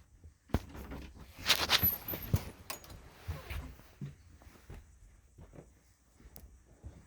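A dog moving about: scattered light knocks and scuffling rustles, loudest in a short rustling burst about a second and a half in.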